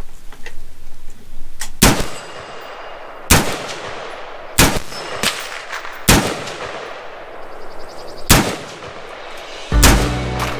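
Five single gunshots about one and a half to two seconds apart, each with a short echo. Music starts near the end.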